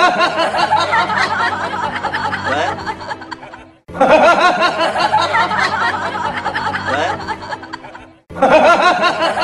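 A laughing sound effect over music, looped: the same clip of about four and a half seconds fades out and starts again abruptly, once near four seconds and again near eight seconds.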